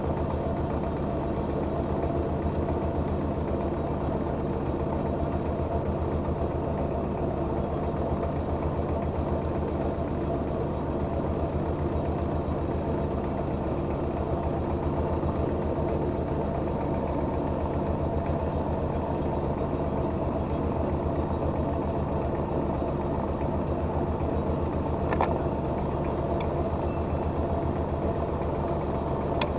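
Rice mill's engine running steadily at constant speed, with an even firing beat, as it drives the machine through its belt. A single short click sounds near the end.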